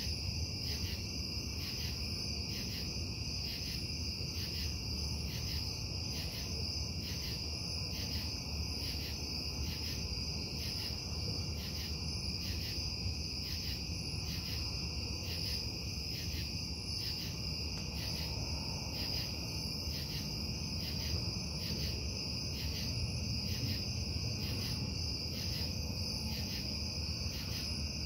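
A steady low industrial rumble from a metal-casting plant, carrying at night, with crickets chirping over it in an even, pulsing high-pitched chorus.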